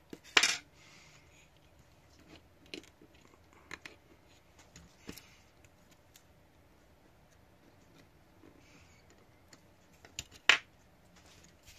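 Scattered small clicks and taps of fingers and tweezers handling a model railcar's floor plate while pressing a capacitor down onto double-sided tape. The sharpest click comes about half a second in and another near the end.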